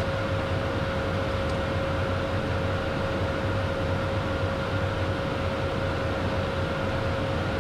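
Steady cockpit noise of a Beechcraft Premier 1A business jet in descent: airflow rush and the hum of its twin Williams FJ44 turbofans, with a steady whine over it.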